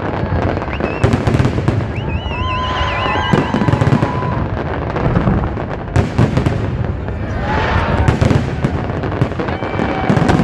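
Festive fireworks display: a rapid, continuous series of aerial shell bangs and crackles. A warbling whistle sounds about two to three seconds in, and a few voices can be heard between the bangs.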